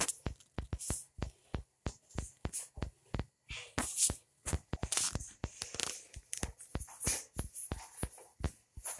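Background music with a fast, clicking electronic beat, with a burst of rustling noise about four seconds in.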